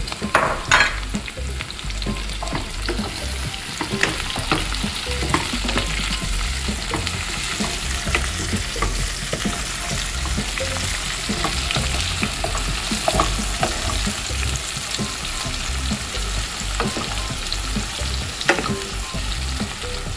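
Onion, green pepper and spring onion sizzling steadily in hot oil in a frying pan, while a wooden spoon stirs them, with frequent scrapes and clicks of the spoon against the pan.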